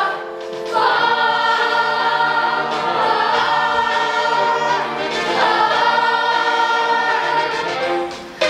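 Children's chorus singing a long held note with musical accompaniment, moving to a new chord about five seconds in, as the closing word of a musical number.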